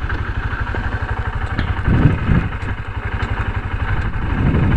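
Honda SP 125 motorcycle's single-cylinder engine running steadily under way, a continuous low, fast-pulsing engine note.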